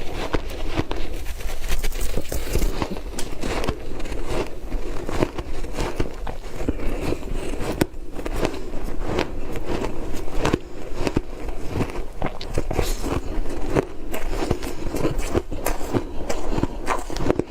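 Ice being bitten and chewed: a dense, continuous run of crackling crunches.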